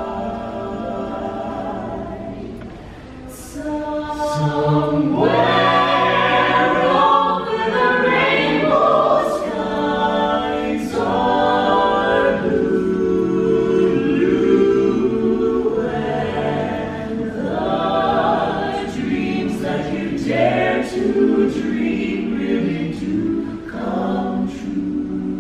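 An a cappella vocal ensemble singing in close harmony without instruments, holding sustained chords. It softens briefly a few seconds in, then comes back fuller.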